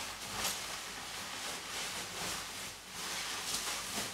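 Plastic bubble wrap crinkling and rustling as it is handled and pulled open by hand, with several short louder crackles.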